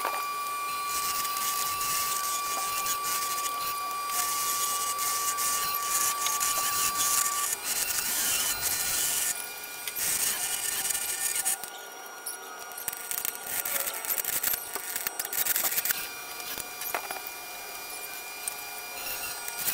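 Bowl gouge cutting the inside of a spinning segmented wooden bowl on a wood lathe: a hissing, scraping cut that comes and goes in long passes, heaviest through the first ten seconds or so, then lighter and more broken. A thin steady high whine runs through the first seven seconds.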